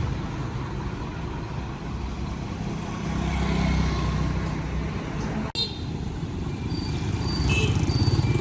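Motorcycle engine running, rising and easing in loudness. The sound breaks off abruptly about five and a half seconds in, and an engine carries on after the break.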